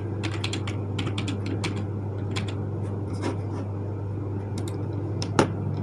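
Typing on a computer keyboard: a run of quick, irregular key clicks, with one louder key strike about five seconds in, over a steady low hum.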